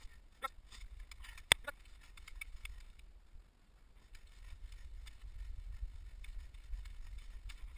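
Cross-country skis running over a groomed snow trail, with scattered sharp clicks as the poles plant, the loudest about a second and a half in, over a steady low wind rumble on the microphone.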